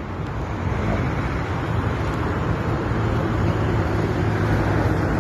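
A motor vehicle driving along a road, heard from its open cargo bed: steady engine hum with road and wind noise, growing slightly louder.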